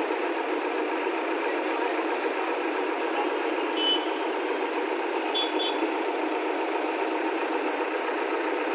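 Diesel engine of a Tata 315V backhoe loader running steadily at idle. Two short high beeps sound near the middle.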